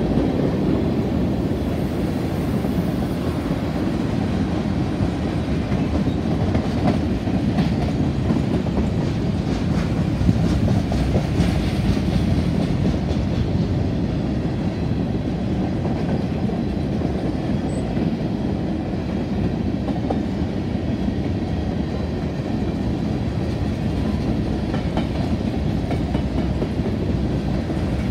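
Freight train's covered hopper cars rolling past: a steady, loud rumble of steel wheels on rail.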